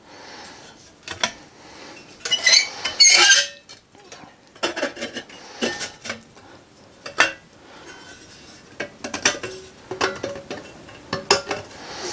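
Thin sheet-steel forge-kit panels clanking and scraping against each other as the back plate is worked into place behind the tabs: irregular metallic clinks, with a louder stretch of scraping about two to three seconds in.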